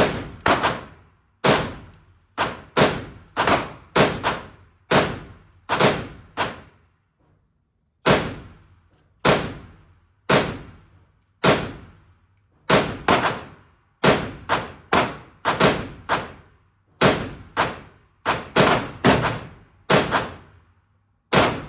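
Semi-automatic firearm being fired in a steady string of about thirty shots, roughly one or two a second with a short pause partway through. Each shot is a sharp crack followed by an echoing decay, typical of an indoor range.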